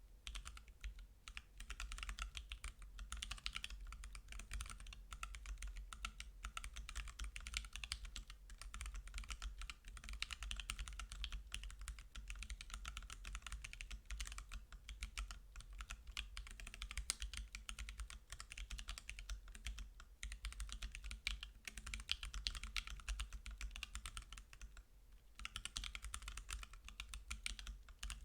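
Continuous fast typing on a Reviung41 40% custom keyboard with lubed C³Equalz Kiwi tactile switches, an FR4 plate and Ducky PBT keycaps: a dense run of light keystroke clacks, with two brief pauses near the end.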